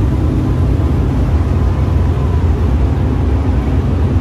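Engines of a pack of dirt-track race cars running as they circle the dirt oval, a loud steady rumble.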